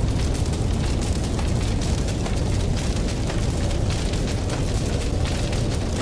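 Sound effect of a large fire burning: a steady deep rumble with constant crackling and popping.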